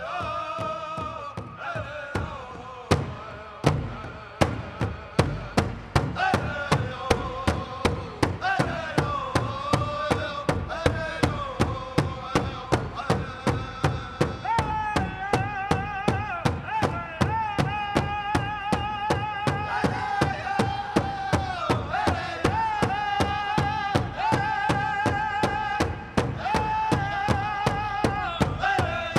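Pow wow drum group singing around a big drum struck in a steady beat of a little over two strokes a second. The drumming comes in strongly about three seconds in, under the singers' high voices.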